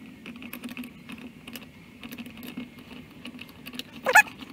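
Small metallic clicks and taps from a tire bar working on a manual tire changer and the wheel rim, over a steady low hum. A short squeal about four seconds in.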